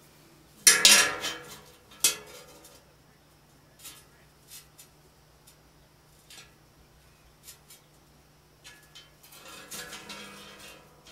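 Metallic clatter of a brass folding rule set down and handled on a thin sheet of rusty tin plate lying over the anvil, the plate ringing. A loud clatter comes about a second in and a sharper knock at about two seconds, then scattered light clicks and a longer scraping rattle near the end as the rule is shifted on the plate.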